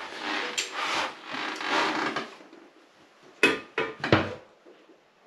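Rubbing and scraping as a basin waste and its fittings are handled under a pedestal basin, followed by three sharp knocks about three and a half to four seconds in.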